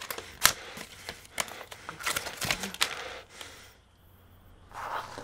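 An object being handled: a string of sharp clicks and light rustles, with one loud click about half a second in, and a short rustle near the end.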